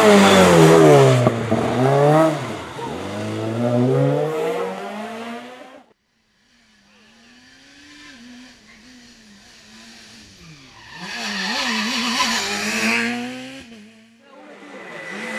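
Rally car engines at full throttle. One car revs hard, the pitch climbing and dropping through gear changes and lifts, until the sound cuts off abruptly about six seconds in. A second car then approaches, faint at first and growing loud as it passes with its revs rising and falling.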